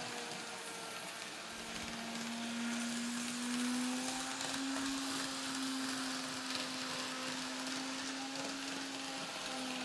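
Kato N-scale GE AC4400CW model locomotive running: a steady motor hum whose pitch drifts slightly up and down, over a hiss of wheels rolling on track.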